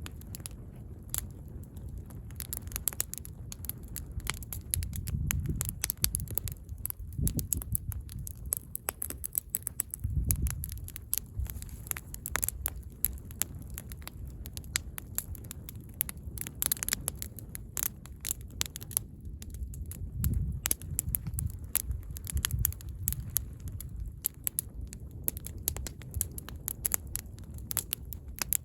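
Footsteps crunching on gravel and rock while hiking, a steady run of irregular crunches and scrapes, with several bursts of low rumble on the microphone.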